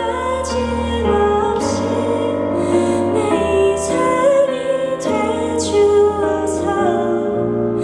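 A slow, gentle song with a woman singing over piano and a bass line that changes chord every second or two.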